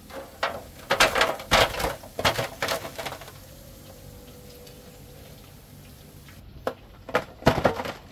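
Metal utensil knocking and scraping against a frying pot as fried chicken is lifted out of the hot oil. There are two bursts of clatter, one from about a second in and another near the end, with a steady sizzle of frying oil between them.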